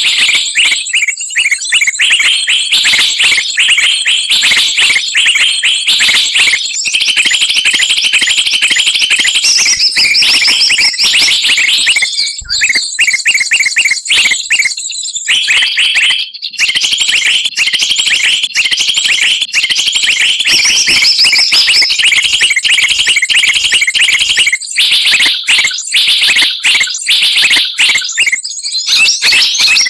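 A bird-trapping lure recording: a dense, noisy mix of many small songbirds chirping and chattering together in fast, high-pitched runs of repeated notes. It breaks off briefly twice around the middle.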